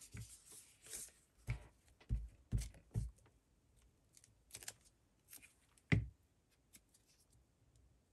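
Paper crinkling and rustling as it is handled, with several soft taps and thuds on the desk, the loudest about six seconds in.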